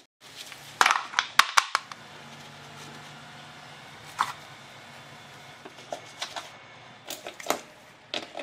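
Clicks and knocks of a lawn mower's plastic air filter housing being handled as the filter is swapped and the cover shut, in a cluster about a second in, once near four seconds and again near seven seconds. A faint steady low hum lies underneath.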